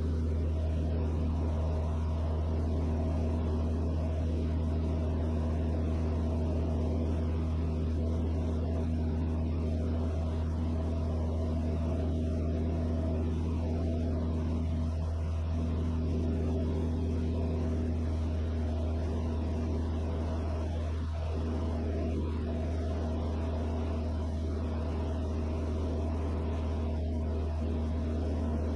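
Van's RV-6A light aircraft's piston engine and propeller droning steadily in flight, heard from inside the cockpit.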